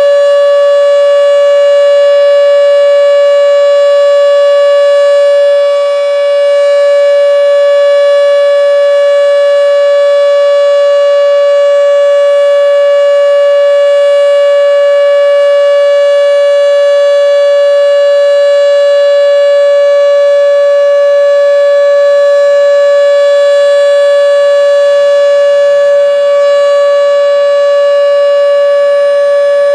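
Federal Signal Model 5 outdoor warning siren sounding the full alert signal: one loud, steady tone held at a constant pitch.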